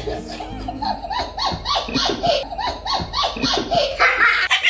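A young boy laughing hard, a run of short falling 'ha' sounds about three a second that gets louder near the end.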